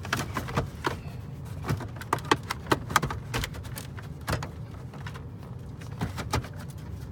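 Hard plastic dash trim clicking and knocking as it is handled and pressed into its clips, a quick irregular series of sharp clicks over a low steady hum.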